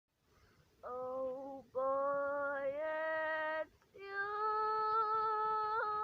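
A female voice singing unaccompanied, with no effects on it: three long held notes, each higher than the last, the third held for about two seconds near the end.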